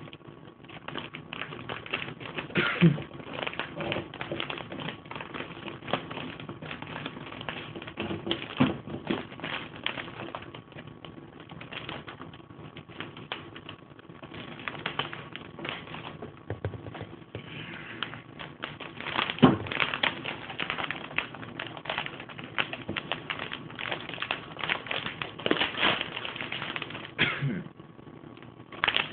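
Packaging for computer parts being handled and opened by hand: a long run of small irregular clicks, taps and crinkles, with a few louder knocks, notably about three seconds in and past the middle.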